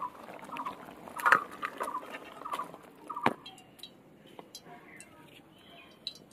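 Crab curry being scraped out of an aluminium karahi into a steel bowl with a spatula: short squeaky scrapes repeating about every half second, and two sharp metal knocks, about a second in and about three seconds in. Quieter after that, with only faint light clicks.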